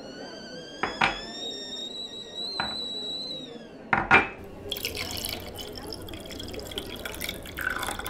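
Coffee being poured into a cup: the pouring tone rises slowly as the cup fills, with a few sharp clinks of china. After about four seconds it gives way to softer splashing and clattering.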